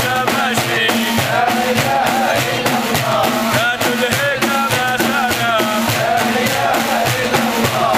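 Men chanting a Sufi devotional song to a steady beat of several large hand-held frame drums struck together.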